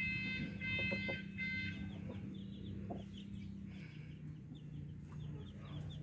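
Chickens calling: a drawn-out pitched call broken into segments over the first two seconds, then a run of short high peeps several times a second, over a steady low hum.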